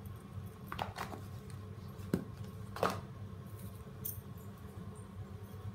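A few light clicks and taps of a spoon against a stainless steel bowl of cut yam pieces as spice powder is added, over a steady low hum.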